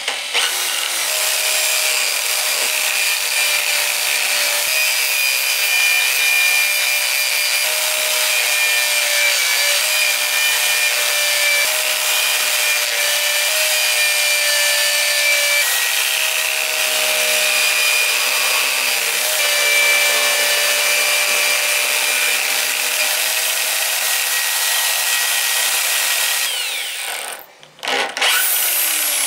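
Electric drill clamped to a bench and run as a makeshift lathe: its motor whines steadily while a hand tool scrapes and cuts grooves into a round wooden blank spinning in the chuck. The sound cuts out briefly near the end, then starts again.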